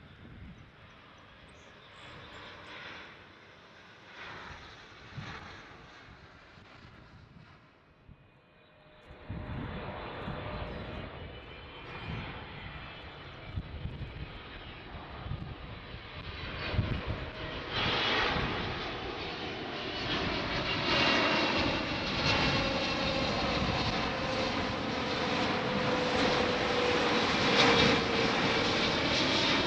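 A jet airliner's engines: faint at first, then after a cut about eight seconds in, a rushing jet noise with a high whine of fan tones that grows steadily louder as the plane comes closer.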